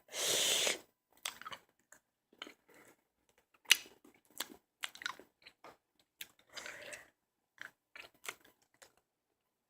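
Mouth sounds of someone chewing a Warheads sour hard candy: scattered wet clicks and crunches, with one sharper crack a little under four seconds in. There is a short noisy rush at the very start.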